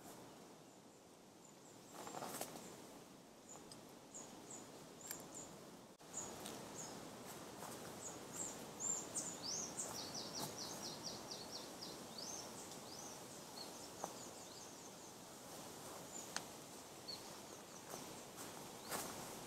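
Wild birds chirping over a steady, quiet background hiss. About nine seconds in, one bird gives a quick run of about ten short, falling notes. A few soft rustles and clicks are scattered through.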